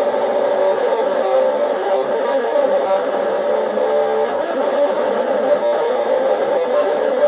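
Electric guitar playing continuously.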